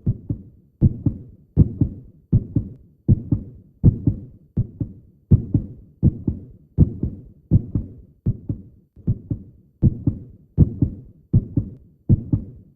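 Heartbeat in an even lub-dub rhythm, each beat a pair of low thumps, about 80 beats a minute.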